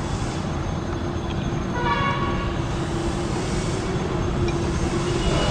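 Steady jet-engine rumble with a low hum from a Boeing 787-8 taxiing, and a short horn-like honk about two seconds in.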